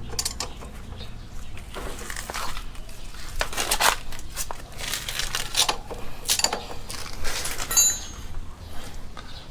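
Metal tools and parts clinking and scraping while working on a motorcycle's rear axle and chain adjuster: irregular light clicks and knocks, with a short metallic ring about eight seconds in.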